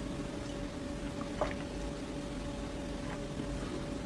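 A few faint sips of a drink from a glass, the small wet mouth sounds clustering about a second and a half in, over a steady faint hum.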